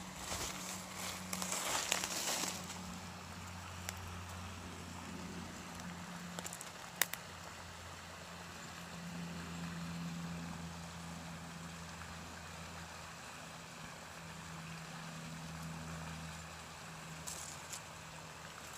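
Dry leaves and a twig rustling and crackling under a hand during the first couple of seconds, with a sharp click about seven seconds in. Underneath runs a low, steady engine hum that swells and fades.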